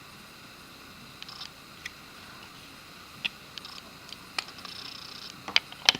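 Light metal clicks and taps of a Glock pistol frame and its parts being handled as the new extended slide lock lever is seated. The clicks come a few at a time, with sharper ones near the end, the loudest just before it ends.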